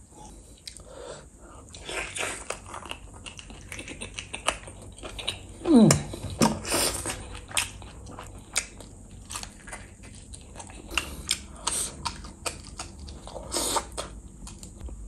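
Close-miked chewing and biting of curried meat eaten by hand, with many small mouth clicks and smacks. About halfway through comes one short, loud sound that falls in pitch.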